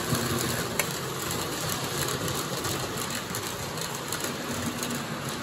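Lionel O gauge model train running on three-rail tubular track: a steady rolling rumble and motor whir as a steam locomotive and its lighted passenger cars pass close by.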